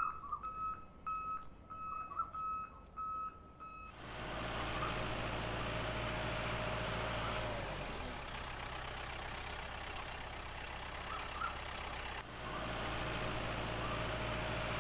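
A vehicle reversing beeper sounding a steady series of evenly spaced beeps, then cut off about four seconds in by a steady engine running, with a low hum and a lot of hiss.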